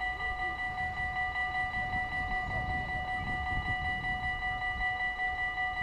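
Electric warning bells of a Dutch automatic half-barrier level crossing ringing continuously, a fast, even metallic ring. They signal that the crossing is closing for an approaching train as the barriers lower.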